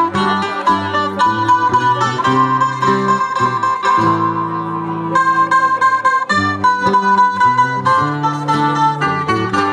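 Several acoustic guitars playing a plucked instrumental passage of a folk song, with quick picked notes over strummed chords.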